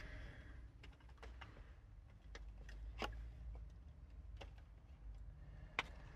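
Faint, scattered clicks and taps of a hard plastic trim section being worked off a steering wheel, about eight of them, spaced a half second to a second apart, over a low steady hum.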